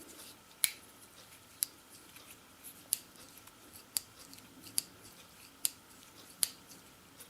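Stiff, freshly oiled blade of a Victorinox Pioneer Swiss Army knife being worked open and shut, snapping against its backspring in about seven sharp clicks, roughly one a second. The blade is still sluggish and does not close fully.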